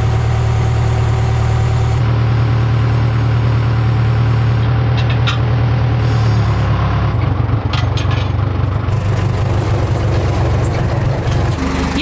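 Case backhoe loader's diesel engine running at a steady speed, with a few brief clanks from the machine and the timbers.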